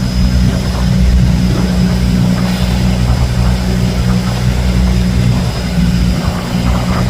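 Fishing boat's engine running steadily at constant speed, a low continuous hum.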